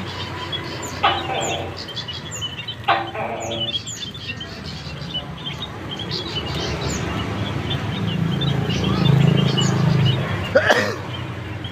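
Tokay gecko calling twice, about a second and about three seconds in, over the steady high chirping of a flock of white-headed munias. A short sharp burst comes near the end.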